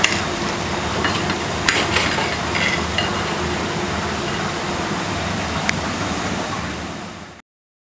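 Steady hum of chip-shop kitchen machinery, with a few sharp clicks and taps as a large knife cuts through a battered, deep-fried potato-and-mince cake and knocks against a china plate. The sound fades and cuts off near the end.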